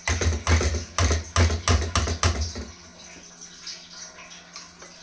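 Wooden spoon beating thick yogurt kadhi batter in a steel pot: a quick run of thudding strokes, about four a second, that stops after two and a half seconds or so. Behind it, a faint steady rush of water filling a drum from an RO filter.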